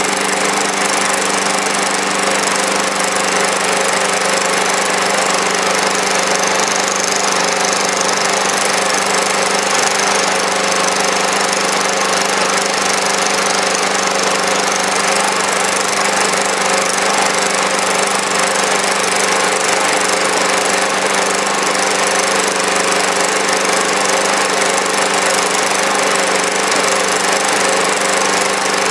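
Small engine in standard trim running steadily at a constant speed, driving a generator under a steady electrical load of about 355 watts.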